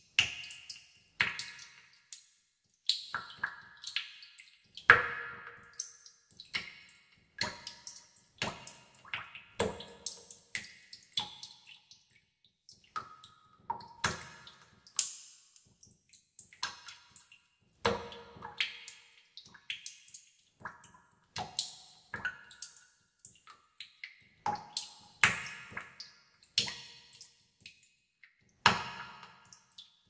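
Water droplets dripping into a pool in a cave: an irregular run of plinks of varying pitch, several a second, each with an echoing tail.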